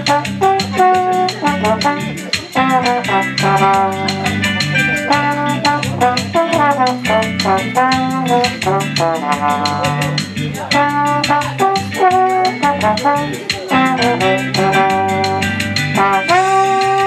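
Slide trombone playing a solo melody of separate notes over a recorded backing track with a steady drum beat, holding a long note near the end.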